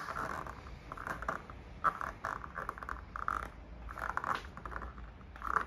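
Plastic roof molding strip on an Acura MDX being pried up by hand from its channel: a run of short scraping and rubbing noises, with a sharper click about two seconds in.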